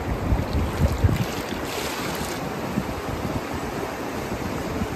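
Stream water rushing over rocks, with splashing as a cooking pan is dipped into it and filled, and wind buffeting the microphone in low irregular thumps.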